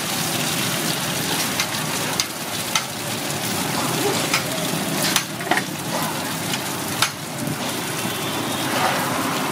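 Sesame-coated banana fritters deep-frying in hot oil: a steady sizzle, with a few sharp clicks through it.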